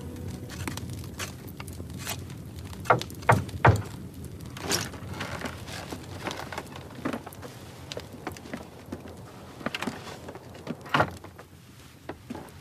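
Three loud knocks on a wooden door in quick succession, followed by scattered softer thuds and footsteps.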